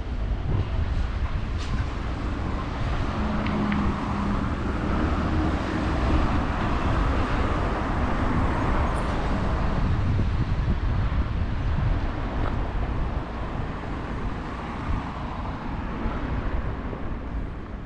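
Road traffic: cars driving past on a busy street, tyre and engine noise swelling toward the middle and easing off near the end.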